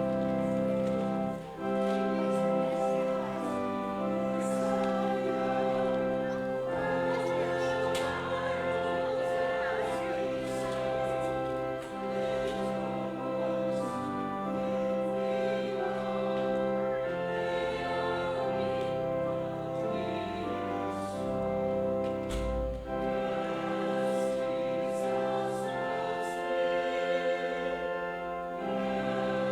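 Choir or congregation singing a hymn to instrumental accompaniment, moving in long held chords.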